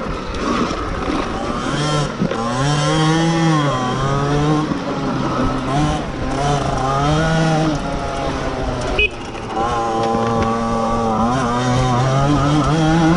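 Sur-Ron electric dirt bike's motor and drivetrain whining under way, the pitch rising and falling over and over as the throttle is opened and closed, over rushing wind and track noise. There is a short knock about nine seconds in.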